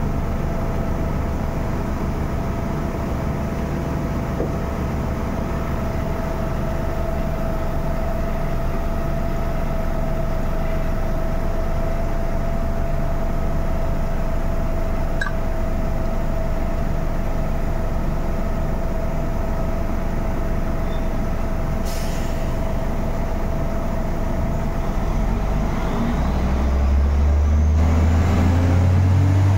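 Drilling rig machinery running with a steady low rumble and a constant whine. A deeper engine note comes up about four seconds before the end and grows louder.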